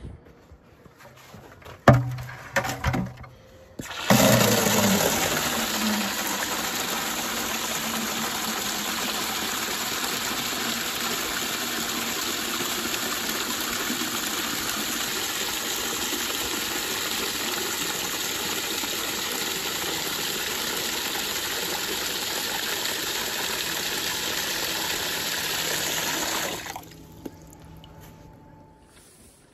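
Outdoor wall spigot running full, its stream of water pouring steadily into a plastic bucket until the flow cuts off near the end. A few knocks come just before the water starts.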